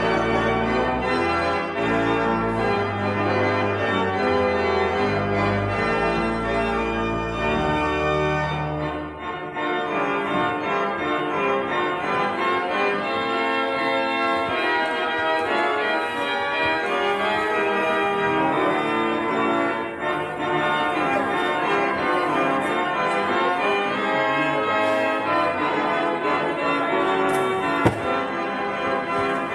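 Church organ playing a piece of full held chords, with deep pedal bass notes for the first nine seconds or so before the bass drops out. A single sharp click near the end.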